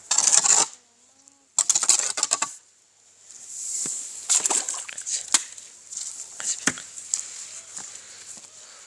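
Gritty scraping and knocking of wet brick mix being worked in a homemade brick-moulding machine: two short scraping bursts, then a longer stretch of scraping with many sharp knocks.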